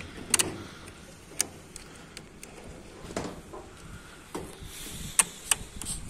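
Handling noise: about half a dozen sharp clicks and taps scattered over a faint steady background. The loudest come about a third of a second in and about five seconds in.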